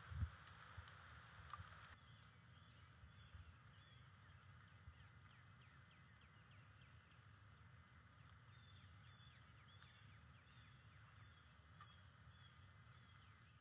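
Faint outdoor background: a brief low thump right at the start, then a steady low rumble with many faint, short, high songbird chirps and down-slurred notes scattered through the middle and end.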